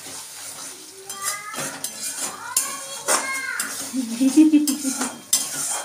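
Metal spatula scraping and clanking against a steel pan in irregular strokes while stirring a thick masala as it is fried down. Short rising-and-falling voice-like calls come in between the strokes, and a louder pitched sound near the end.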